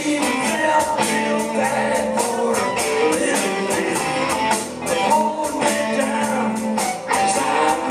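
Live rock band playing: electric guitars, bass guitar and a drum kit keeping a steady beat, with a man singing over it.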